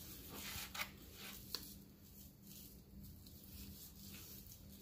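Faint, soft handling sounds of a hand rubbing seasoning into a raw pork roast, with a couple of light ticks, over a low steady hum.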